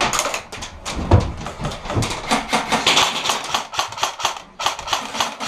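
Airsoft gunfire: irregular volleys of sharp, rapid clicks, with a couple of dull knocks about one and two seconds in.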